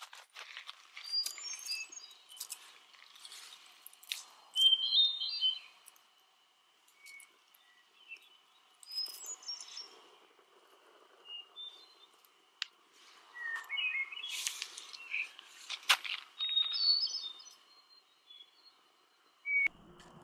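Songbirds chirping in short high phrases over the crackle and snap of a small wood campfire as sticks are added to it. Several sharp pops stand out, the sharpest about two-thirds of the way through.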